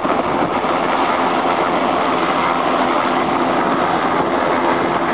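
Bell 206 JetRanger helicopter running close by: steady, loud turbine and rotor noise with a fast, even beat from the main rotor.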